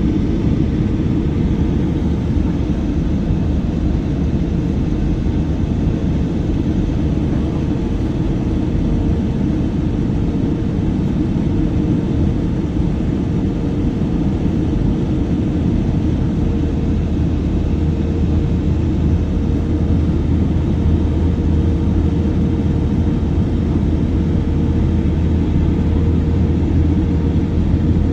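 Steady cabin noise inside a jet airliner in flight: a deep, even rush of engine and airflow noise with a faint steady hum. A low drone grows a little stronger about halfway through.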